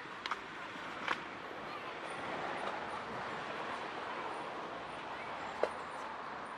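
Open-air seafront ambience: a steady wash of noise with faint voices of passers-by and a few sharp knocks scattered through it.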